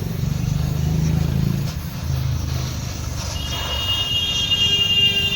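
A motor vehicle engine running with a low rumble, joined about three seconds in by a high steady whine.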